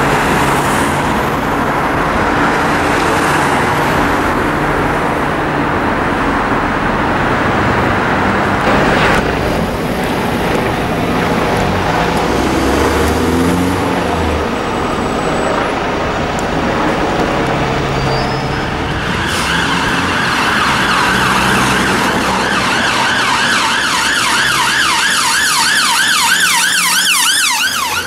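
Police helicopter overhead with a steady hum of road traffic. About two-thirds of the way in, an emergency-vehicle siren starts wailing and switches to a faster yelp near the end.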